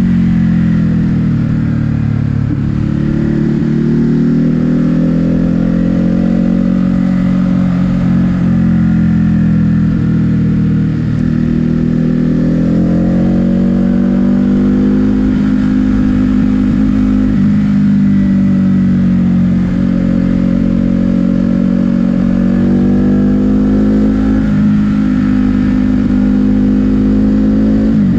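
A 2022 Ducati Hypermotard 950 SP's 937 cc L-twin engine under way, its pitch rising and falling several times as the rider accelerates and backs off the throttle.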